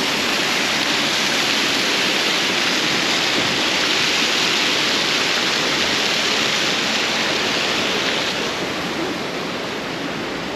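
Hot spring water rushing steadily down wooden channels, a loud even rush that eases a little after about eight seconds.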